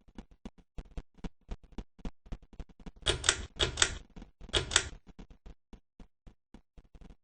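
Harbor Breeze Edenton 52-inch ceiling fan running with a rapid, even clicking. About three seconds in come three louder rattling bursts, each about half a second long.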